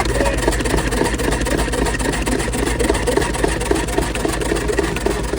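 Machinery running steadily, with a fast, even pulsing rhythm of several beats a second.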